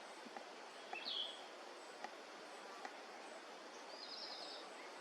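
Faint outdoor background with two high wild-bird calls: a short call about a second in and a quick trill of rapid notes about four seconds in.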